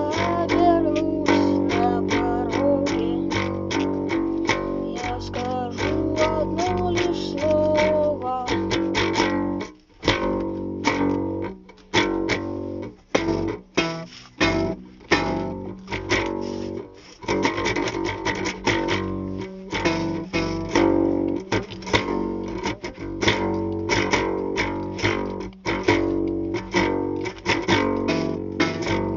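Instrumental part of a band song: guitars over bass guitar. A sliding lead melody runs through the first several seconds, then the guitars carry on in a steady rhythmic pattern with short breaks.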